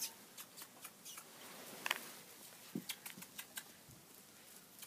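Faint crackling and rustling of dry straw under footsteps, a scatter of light irregular ticks, with a brief high squeak about two seconds in.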